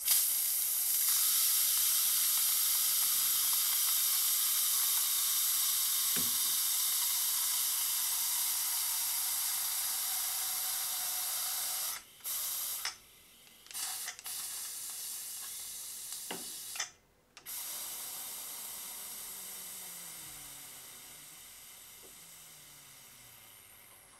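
Steam hissing out of an Afghan aluminium pressure cooker's weighted valve, held open with a wooden spoon for a manual pressure release. The hiss starts loud and fades slowly as the pressure drops, breaking off briefly a few times in the middle.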